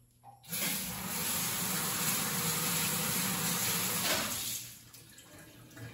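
Water from a tap running into an emptied plastic water-filter housing to rinse it out: a steady rush that starts about half a second in and is shut off after about four seconds.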